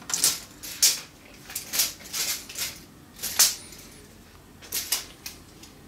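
Steel tape measure handled against a horn speaker cabinet: a string of short, hissy scrapes and rattles, about a dozen in five seconds.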